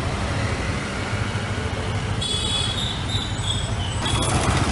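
Street traffic: the engines of passing vehicles, among them a city bus, run in a steady low rumble. A high-pitched squeal comes in about two seconds in and lasts over a second, and the noise swells near the end as the bus passes close.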